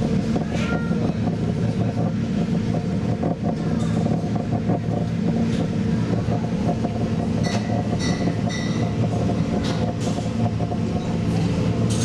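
Paddle wheel of the MS Ammersee churning the water inside its housing as the ship gets under way, over a steady low drone of the drive machinery, with scattered sharp knocks.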